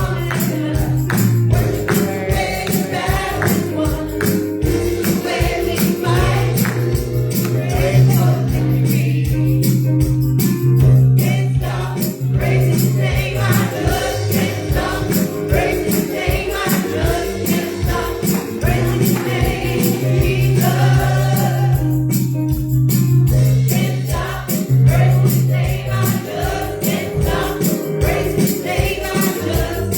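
Gospel music: voices singing over a steady beat and bass line, with a tambourine shaking on the beat.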